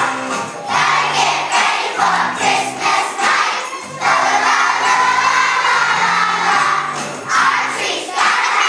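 A group of grade-two children singing a Christmas song together, over instrumental accompaniment whose low notes step along steadily.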